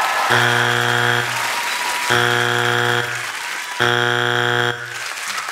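Three low buzzer blasts, each about a second long and evenly spaced, over audience applause.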